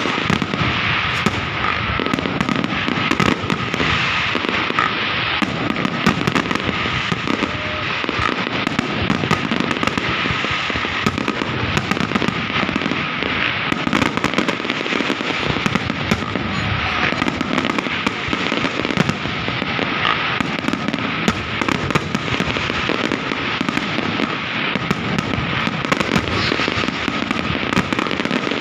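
Fireworks display going off without a break: a dense run of bangs and crackling shell bursts.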